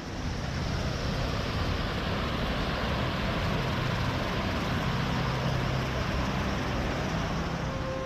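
Water pouring down a small rock waterfall, a steady rushing splash heard close up.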